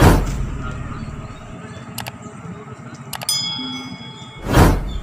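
Subscribe-button animation sound effects: a whoosh, then a mouse click, a second click with a bright bell ding, and another whoosh near the end.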